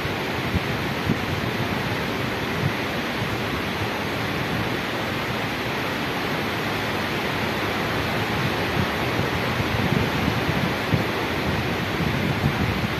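Steady rushing noise of wind, with an uneven low rumble from the wind buffeting the microphone.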